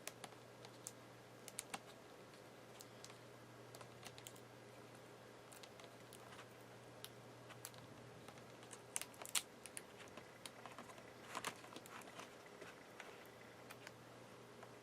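Faint, sparse clicks and taps of hands handling a laptop LCD panel and working its taped-down display cable loose, with small clusters of clicks about two-thirds of the way through, over a faint steady low hum.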